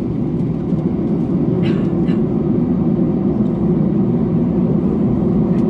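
Airbus A321-212 cabin noise while taxiing: the CFM56 jet engines run steadily at low thrust over a continuous rumble from the landing gear rolling on the taxiway.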